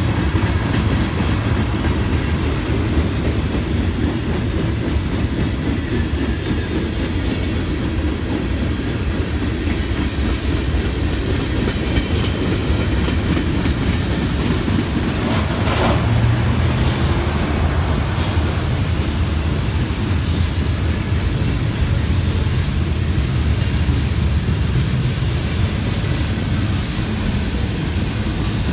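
Freight train cars rolling past close by: a steady heavy rumble of wheels on rail, with a brief high squeal from the wheels about six seconds in.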